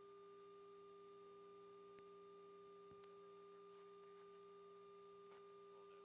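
Near silence: a faint steady hum made of two pure tones, one low and one higher, over faint hiss.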